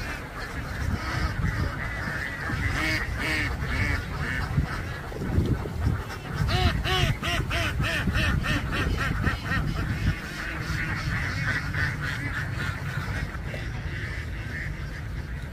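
A large flock of domestic ducks quacking, many calls overlapping into a constant chatter that is densest about six to ten seconds in, over a steady low rumble.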